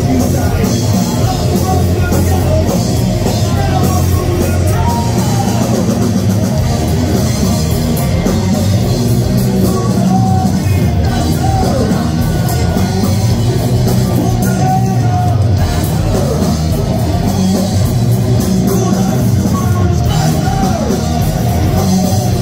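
Live thrash metal band playing loud: distorted electric guitars, bass guitar and drum kit, with a lead vocalist singing over them.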